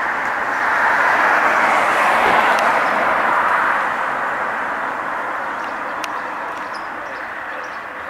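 A road vehicle driving past: its tyre and engine noise swells about a second in, peaks, then fades steadily away.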